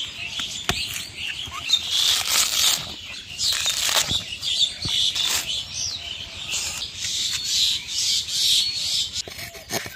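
Fibrous coconut husk being pried and torn off with a curved iron blade, with repeated ripping and scraping and a few sharp clicks. Birds chirp steadily in the background throughout.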